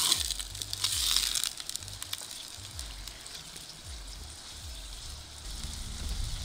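Liver pieces frying in a steel pan over a wood fire while a wooden spoon stirs them: a sizzling hiss that surges right at the start and again about a second in, then settles to a fainter steady hiss. A low rumble comes in near the end.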